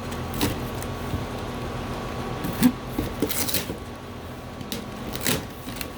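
A shipping package being opened by hand: scattered rustles and a few knocks, with a steady low hum underneath.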